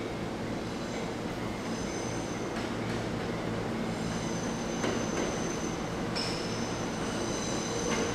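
Wheels of the Cassiopeia sleeper train's E26-series coaches squealing against the rails as the train is pushed slowly over curved pointwork. A high, steady squeal sets in about a second and a half in over a low rolling rumble, with a few clacks over rail joints.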